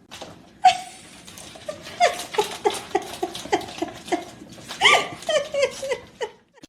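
A dog yipping in a quick series of short, high calls, each falling in pitch, about three or four a second, with a short break near the middle.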